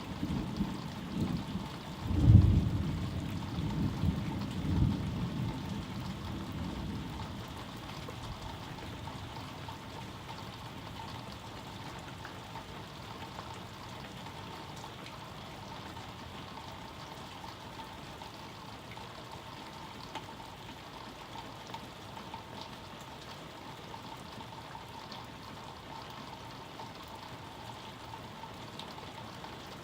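Thunder rumbling over steady rain: a sharp, loud clap about two seconds in, with rolling rumbles that die away over the next few seconds, leaving the even hiss of rainfall.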